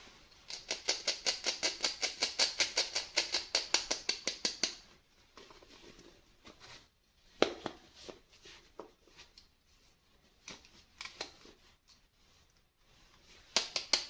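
Toy packaging handled by hand: a fast run of sharp clicks, about eight a second, for some four seconds, then scattered single clicks and light rustling.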